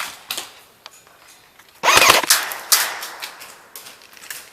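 Airsoft guns firing: a loud rapid burst about two seconds in, then several single sharp shots.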